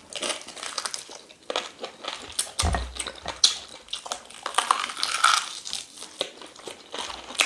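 Two people chewing and biting mouthfuls of rice and beans eaten by hand, close to the microphone: wet mouth noises with many short clicks, and a low thump nearly three seconds in.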